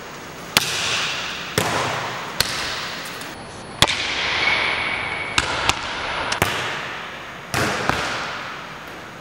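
Volleyball smacks in a gymnasium: about nine sharp hits of the ball, forearm passes and bounces on the hardwood floor, irregularly spaced with a couple in quick pairs. Each one rings out in a long hall echo.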